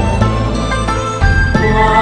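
Buddhist chant music: slow chanting over sustained, held accompaniment, with wavering held notes coming in about one and a half seconds in.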